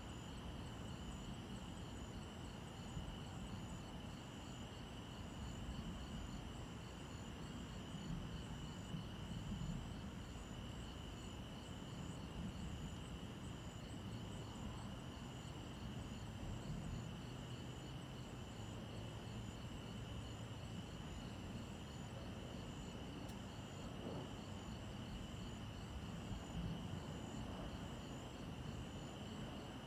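Crickets and other night insects calling steadily: a continuous high trill with a faster pulsing chirp above it, over a low background hum.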